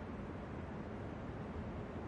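New York subway station ambience: a steady low rumble with no distinct events.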